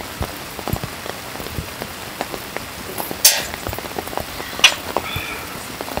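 Rain falling, with many scattered drops tapping on a surface over a steady hiss. Two sharper clicks stand out, a little past three seconds in and again near five seconds.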